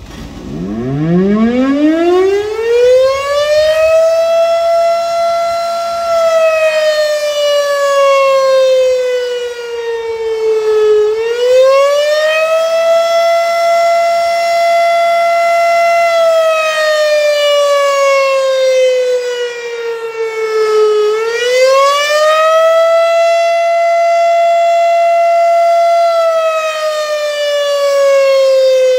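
Federal Signal RSH-10 Thunderbeam rotating electromechanical siren sounding an attack signal. It winds up from standstill to a steady high wail, then falls slowly and climbs back to the high pitch about every ten seconds.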